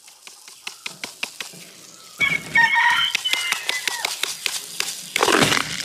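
Coarse black firework-powder granules trickling out of a paper shell tube and pattering onto a wooden tabletop as many small ticks, with a louder rush of pouring near the end. A rooster crows loudly about two seconds in, the loudest sound here.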